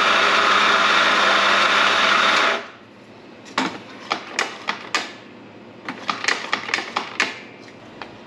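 Electric coffee grinder running loudly, cutting off about two and a half seconds in. Then two quick runs of sharp clacks as the grinder's doser lever is worked to drop ground coffee into an espresso portafilter.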